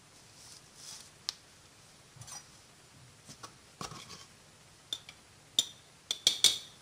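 Paper flour bag crinkling and a small cup scraping as flour is scooped out with it, in scattered short rustles and clicks. A few sharper taps come near the end, as a spoon works at the cup.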